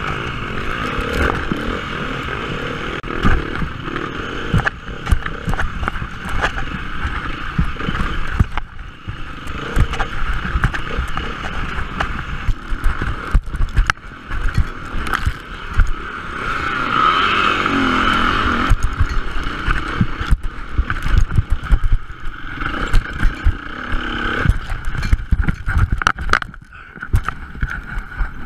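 Enduro motorcycle engine heard from the bike's onboard camera, revving up and down while riding rough trail, with frequent knocks and rattles from the bike over the ground. It revs harder and louder a little past the middle and drops lower near the end.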